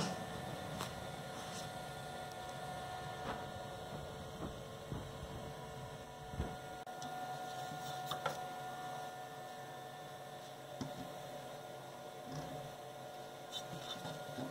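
Steady machine hum, with occasional light wooden knocks and clicks as the freshly cut padauk part is handled and lifted free of the board.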